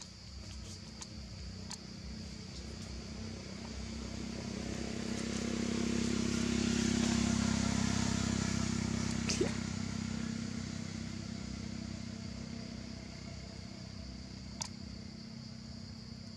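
A motor vehicle passing, swelling over a few seconds, loudest about seven seconds in, then fading, over a steady high drone of insects. A couple of sharp clicks come through, one about nine seconds in and another near the end.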